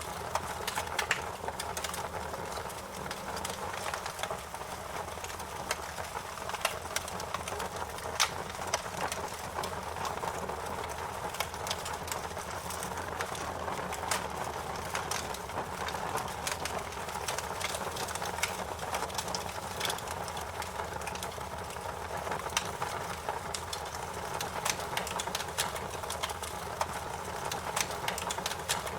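Wood fire crackling: a steady hiss with frequent sharp pops and snaps scattered irregularly throughout.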